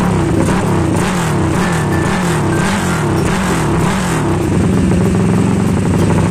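Single-cylinder four-stroke engine of a Honda XRM 125 underbone, built out to 300cc-plus with a four-valve head, blipping its throttle up and down about six times in quick succession, then settling to idle about four seconds in. It runs through a temporary exhaust pipe on the freshly assembled engine's test run.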